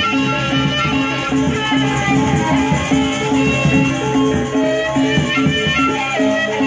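Live Sasak traditional ensemble music for a Jangger dance, from a gendang beleq group: a steady, repeating pattern of pitched notes with a melody running over it.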